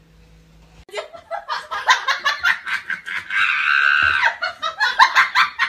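A person laughing in rapid pulses that start about a second in, with a held, high-pitched squealing stretch in the middle.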